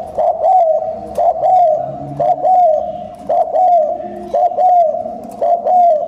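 Spotted dove bow-cooing rapidly: loud, short coos that each rise and then fall, coming in quick pairs about once a second. This is the fast bow-coo display that is used to provoke wild doves.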